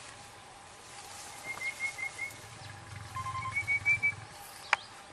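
A bird calling in short whistled notes, first a quick run of four, then a second run that rises slightly, with a single sharp click near the end.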